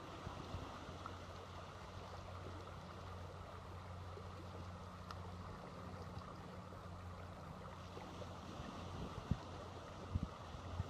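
Steady hiss of shore water and wind, under a low steady hum that fades about eight and a half seconds in. Near the end come a few sharp knocks of boots stepping on stones.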